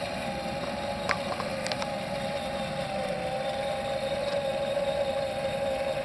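Motorized fire tornado rig running: the motor spinning the flame base hums with a steady pair of held tones over the even rush of the whirling flame column. A few faint clicks come about a second in.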